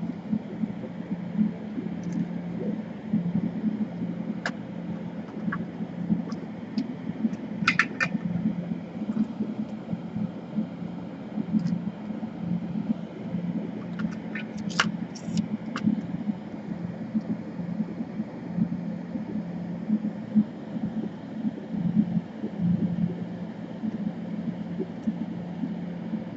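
A steady low hum from a small fan or motor, with a few light clicks and taps scattered through, about 4.5, 8 and 15 seconds in.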